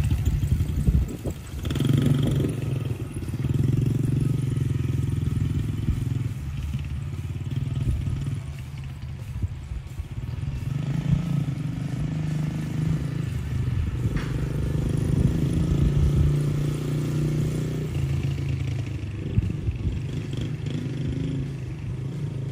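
A 2015 Yamaha TT-R110 kids' dirt bike's small four-stroke single-cylinder engine running as the bike is ridden, its note swelling with throttle and easing off again in stretches of a few seconds.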